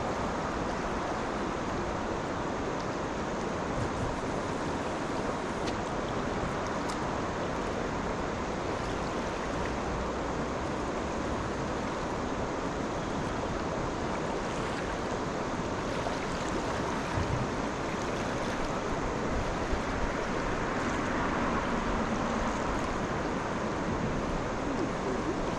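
Steady rushing of river water, an even noise with no breaks and a few faint ticks.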